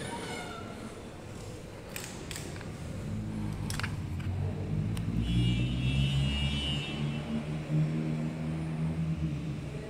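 Low rumble of a motor vehicle's engine passing outside, swelling from about three seconds in and holding steady. A few light clicks come before it.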